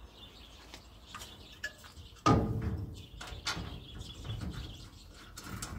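Radiator being worked by hand down into its radiator support: a loud clunk about two seconds in, then a second or so of knocking and scraping, with scattered small clicks.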